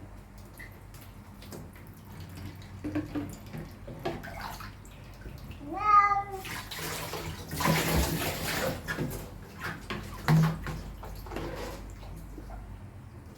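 Water spraying and splashing while a cat is bathed, in bursts, with the loudest rush of water about six and a half to nine seconds in, among scattered knocks and handling sounds. Just before the loudest rush comes a short wavering cry.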